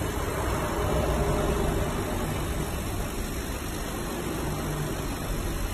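Laser cutting machine running: a steady rushing of fan and air noise over a low hum.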